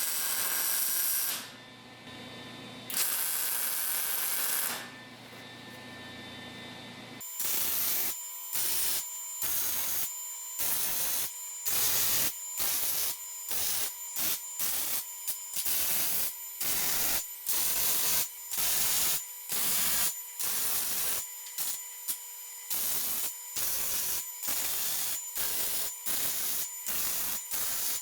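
Electric arc welder joining pole barn nails into a guard. For about the first seven seconds the arc hisses steadily with two short breaks; after that it crackles in many short tack-weld bursts, about one to two a second.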